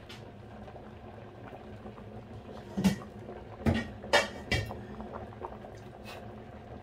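Stainless-steel pot of taro in coconut milk simmering with a steady low bubbling, with four sharp metal knocks against the pot about three to four and a half seconds in, the first the loudest.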